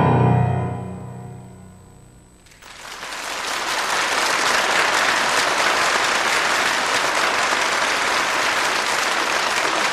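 The last chord of a violin and piano accompaniment rings out and fades over about two and a half seconds. Then steady audience applause starts and continues.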